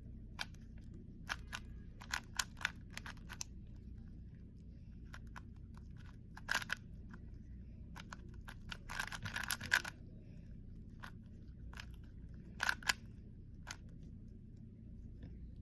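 Plastic 3x3 speed cube being turned by hand during a solve: irregular clicks of the layers snapping round, with quick clattering flurries of turns now and then.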